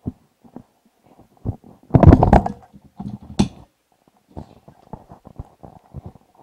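Handling noise from a handheld microphone: scattered low thumps and rubbing, with a louder burst of rumbling knocks about two seconds in.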